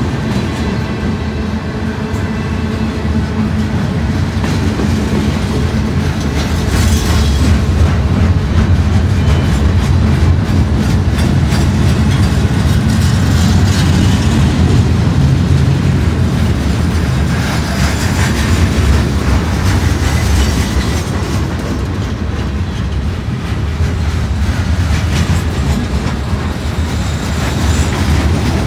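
Freight train of flatcars loaded with steel slabs, then empty open-top cars, passing at speed close by: a loud, steady low rumble of steel wheels rolling on the rails.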